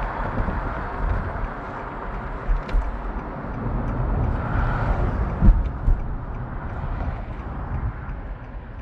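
Road and wind noise from a car driving along a city street, a steady rumbling hiss, with a short thump about five and a half seconds in.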